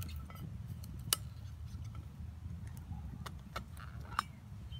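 Wood fire crackling with a few sharp pops and ticks, mixed with light metal clinks as a gloved hand grips the camp pot and its lid on the grill grate, over a low steady rumble.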